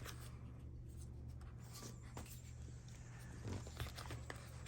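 Faint handling of cardboard and plastic packaging, soft rustles with a few small clicks in the second half, over a steady low hum.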